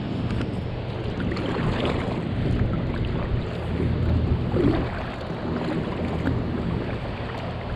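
Strong, gusty wind buffeting the microphone: a steady low rumbling noise.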